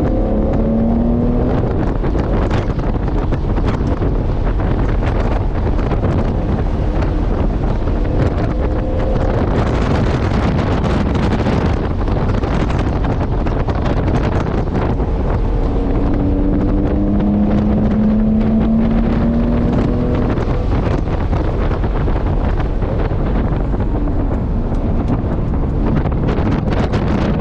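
Early Porsche race car on track, heard from inside the cabin: the engine running hard under loud wind and road noise. The engine note climbs under acceleration near the start and again about two-thirds of the way in.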